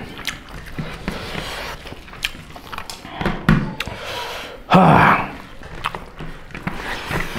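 Eating by hand: fingers mixing rice and curry on plates, with scattered clicks and light knocks of hands and food against the plates and mouth sounds of chewing. Two short vocal sounds with falling pitch come near the middle.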